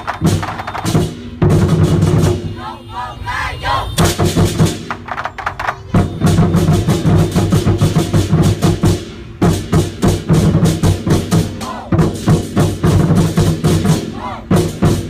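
Lion dance drums and cymbals playing a fast, loud beat, lighter for a moment about two to four seconds in.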